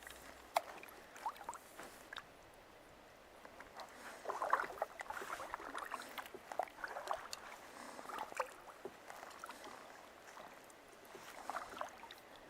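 Kayak paddle dipping into calm water: faint, irregular splashes and drips, busiest about four to five seconds in.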